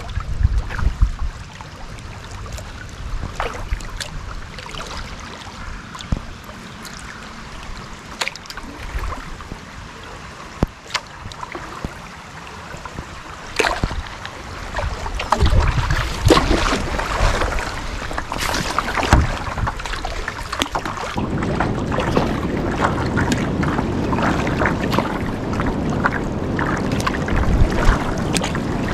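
Kayak paddle strokes splashing in river water, with irregular splashes that grow busier about halfway through. Wind rumbles on the microphone in the last third.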